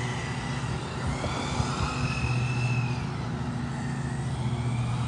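Radio-controlled Losi NASCAR car driving, its electric motor whining with a pitch that rises and falls as the speed changes, over a steady low hum.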